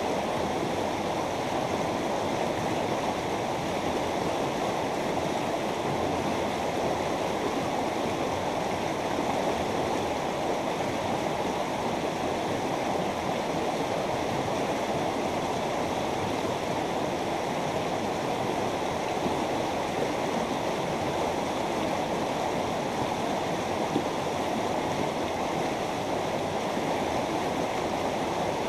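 A mountain river flowing steadily over rocks: a constant rushing of water, fullest in the low and middle range, with no change.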